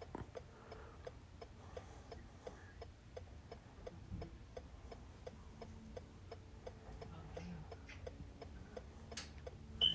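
Faint, steady ticking, about four ticks a second, heard during smart-key programming, with one short high beep near the end.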